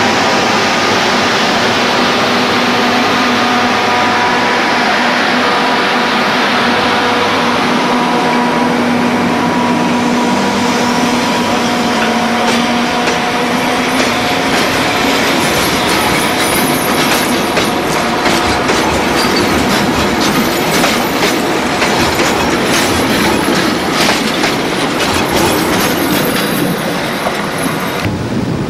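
Locomotive-hauled passenger train passing close by, its wheels running over the rails with a steady whine through the first half. In the second half comes a long run of sharp clicks from the wheels on rail joints.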